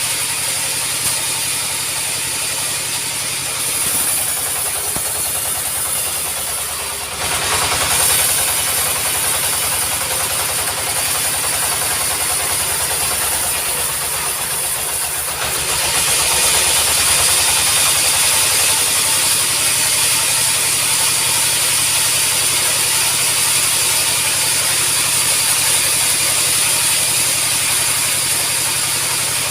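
Sawmill running steadily while sawing acacia wood. The sound grows louder and harsher about seven seconds in, and again about halfway through.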